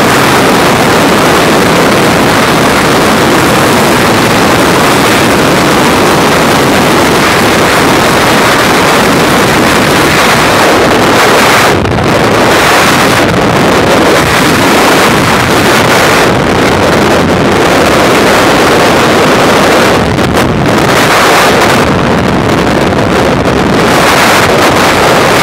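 Freefall wind rushing over a skydiver's camera microphone: a loud, steady roar that thins briefly a few times in the second half.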